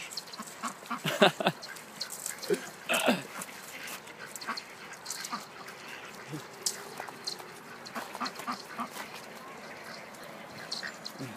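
Ducks quacking: a cluster of short, separate calls in the first three seconds, then sparser, fainter ones.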